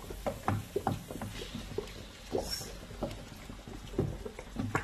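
Wooden spatula stirring minced meat frying in a nonstick pan: irregular light scrapes and knocks against the pan, several a second.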